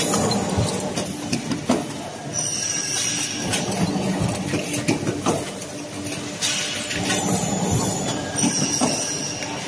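Machinery of an automatic aluminium solar-frame production line running, with steady clatter, knocks and metallic clinks. A high-pitched squeal sounds for about a second, twice: about two and a half seconds in and again near the end.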